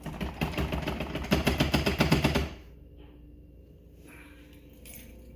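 Roomba s9 robot vacuum rattling as it is shaken by hand, a fast clatter of about ten knocks a second that stops abruptly about two and a half seconds in.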